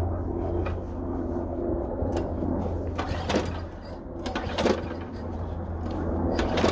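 Lawn mower engine being pull-started: several irregular tugs and rasps of the recoil starter. The owner takes the engine to be flooding from a leaking carburetor with a worn needle seat.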